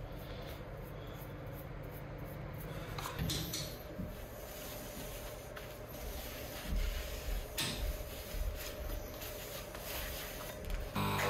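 Gloved hands handling a steel pickaxe head at a bench vise, with soft rubbing and a few light knocks. A steady hum comes in near the end.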